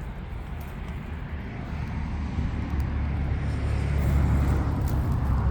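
Outdoor air conditioner condensing unit running: a steady low hum with the rush of its fan, growing louder about halfway through.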